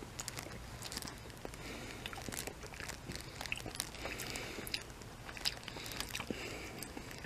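A person chewing a bite of chicken nugget close to the microphone: soft, irregular mouth clicks and smacks.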